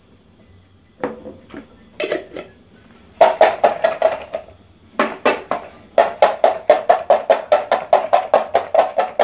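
Garlic cloves rattling and knocking inside a glass jar shaken hard by hand. After a couple of single knocks, a fast, even rattle starts about three seconds in, breaks off briefly, then runs on. The cloves striking the glass are loosening and peeling their skins.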